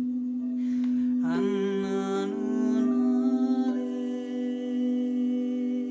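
Crystal singing bowls ringing in one steady, sustained drone. From about a second in, a wordless voice hums a wavering tone over it for a couple of seconds.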